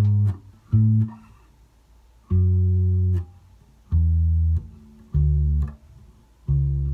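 Electric bass guitar played solo: a norteño passing run going from the second chord down to the first, six single plucked notes, each left to ring briefly. The first two notes come quickly, then a pause of about a second, then four more evenly spaced notes.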